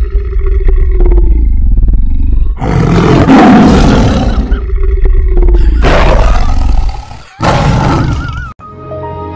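A domestic cat yowling and growling loudly with its mouth open: a drawn-out cry for the first couple of seconds, then three louder, harsher rasping cries broken by short pauses, over a deep rumble.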